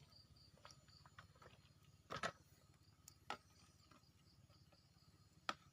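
Near silence over a faint low hum, broken by a few short clicks or knocks, the loudest about two seconds in.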